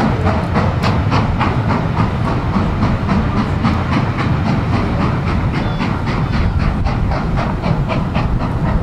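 A passing steam-hauled passenger train, its coaches rumbling along the track below with a rapid, even clatter of wheels on rail as the last carriages run away.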